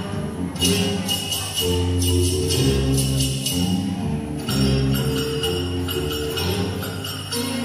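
Recorded music accompanying a stage dance: held melody notes over a bass line, with a bright, high jingling shimmer that comes and goes in stretches of one to two seconds.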